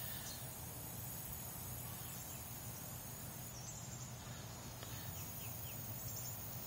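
Faint outdoor background of insects chirping, with a low steady hum underneath.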